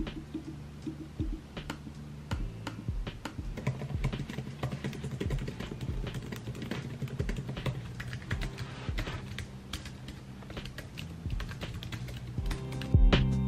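Fast typing on MacBook Air laptop keyboards: a quick, irregular patter of soft key clicks, first on the 2022 M2 MacBook Air's low-travel keyboard, then on a 2017 MacBook Air's keyboard.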